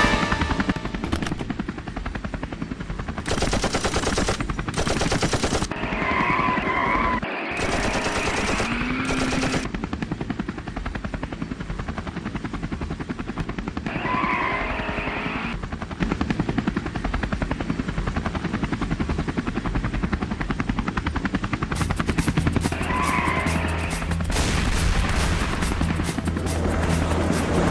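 Film sound effects of rapid, continuous automatic gunfire with helicopter rotor noise, over some music.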